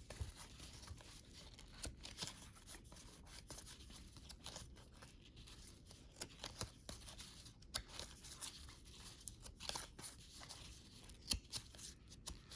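Cardboard trading cards being flipped through and slid off a stack by hand: a string of faint, irregular flicks and rustles, with a few sharper snaps.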